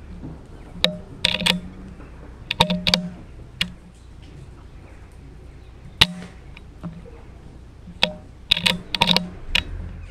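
A single sharp shot from a .22 BSA Superten air rifle about six seconds in. Before and after it come two series of metallic clicks, each a lone click then quick clusters, typical of the rifle's bolt being worked to load the next pellet.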